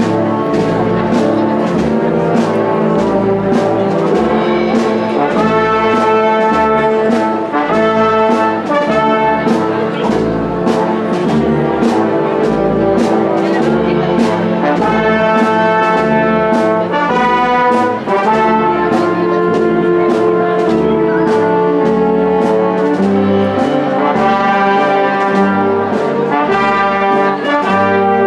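Brass band playing a Holy Week processional march, trumpets and trombones carrying the melody over a steady drum beat and low bass notes.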